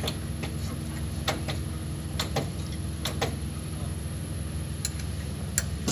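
Scattered light clicks and taps at irregular intervals over a steady low hum: hand work at a brake caliper while it is being bled of air.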